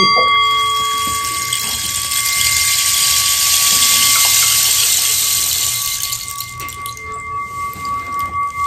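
Rain stick, a dried cactus tube filled with beans, tipped so the beans pour through it in a long rushing hiss that swells and then fades after about five seconds. Under it a struck singing bowl keeps ringing with a steady tone, which begins to pulse near the end as the rim is worked with the stick.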